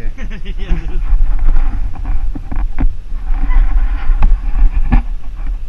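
Wind buffeting the camera's microphone in an uneven, heavy rumble, with a few sharp knocks from the camera mount being handled.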